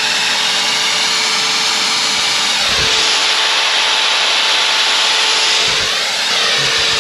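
A 500-watt corded electric drill running steadily at full speed on power from a 600-watt inverter, which is coping with the load. Its speed dips briefly about six seconds in and starts to fall near the end.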